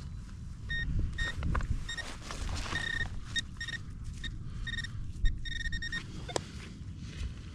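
Metal detector bleeping repeatedly at one steady pitch in short and longer beeps as it is held over a target, stopping near the end. Rustling handling noise runs underneath, with a sharp knock about five seconds in.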